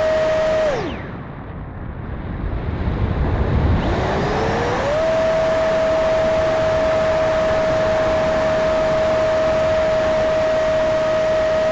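Electric ducted fan of a Freewing F-35 RC jet, heard from an onboard camera. It whines steadily, is throttled back about a second in, leaving rushing air noise, then spools back up from about four seconds in and holds a steady whine.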